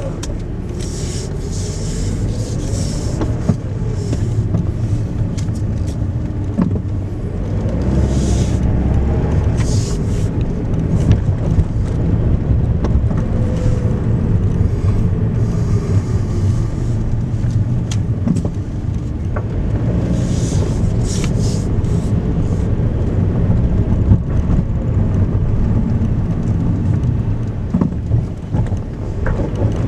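A car's engine and tyre noise heard from inside the cabin, steady, with the engine pitch rising and falling gently as the car drives slowly. Short bursts of higher hiss come several times.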